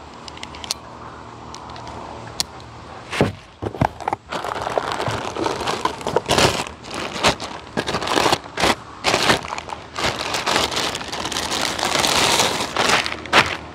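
Clear plastic bag crinkling and crackling as it is handled and pulled open, with many sharp crackles. It grows louder from about three seconds in.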